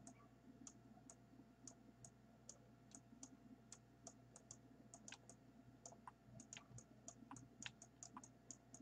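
Faint, irregular clicking of computer controls, several small clicks a second, over near silence.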